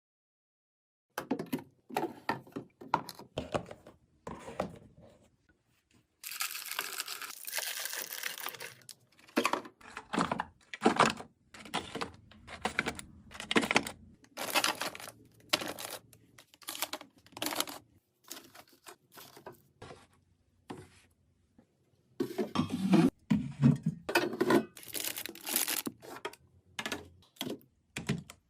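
Snack packaging and containers being handled while a fridge is restocked: a run of short taps, clicks and knocks as items are set down and arranged, with a crinkling rustle of plastic packaging lasting about three seconds, about six seconds in.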